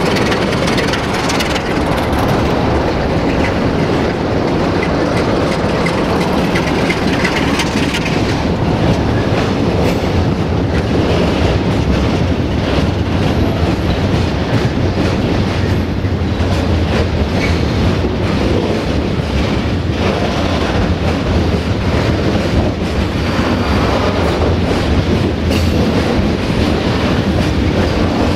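A diesel-hauled freight train of loaded log wagons rolling past, the wheels clattering steadily over the rail joints, with a low engine rumble underneath.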